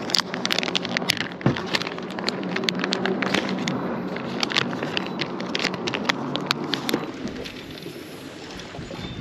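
Crinkling of a plastic soft-bait package (Fresh Baitz HellaMite) as it is handled and a worm is pulled out, a quick irregular run of crackles with one dull knock about a second and a half in. It dies away after about seven seconds.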